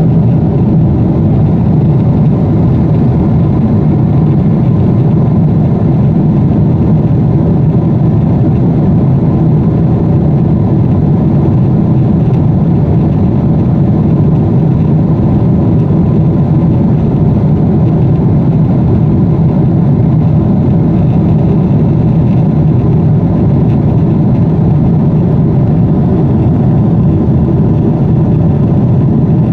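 Steady cabin noise of a jet airliner in cruise: an even, loud rush of engine and airflow noise heard inside the cabin, deep-toned with a faint steady hum above it and no change throughout.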